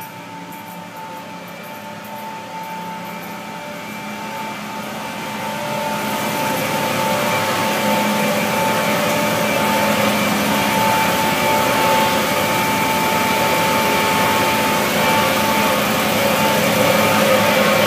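Plant-room machinery around a chiller running: a steady mechanical drone with a fixed high whine, getting louder over the first several seconds and then holding steady.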